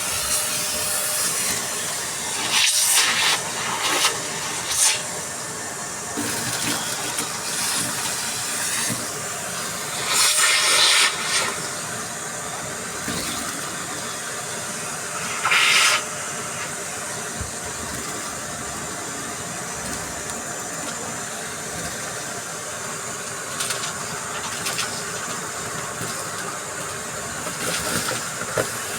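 Vacuum cleaner running steadily and sucking up crunchy debris, with several brief louder rushes as it pulls material in.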